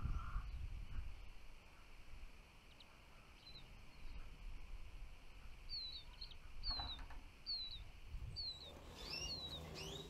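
Small songbird calling: a short, high, falling note repeated about once a second, several times over the second half, with a low steady rumble underneath.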